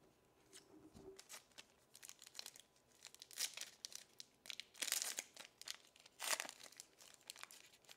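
Foil wrapper of a 2021 Bowman 1st Edition baseball card pack crinkling and tearing as it is ripped open by hand, in irregular crackly bursts, loudest about five and six seconds in.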